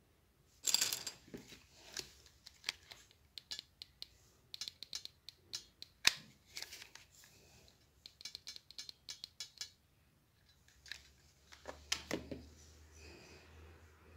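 Small clear decorative crystal stones clicking and tapping against each other and the glass mirror as they are picked up, pressed and glued on with a hot glue gun. The clicks are irregular, with one louder click about six seconds in and a faint low hum near the end.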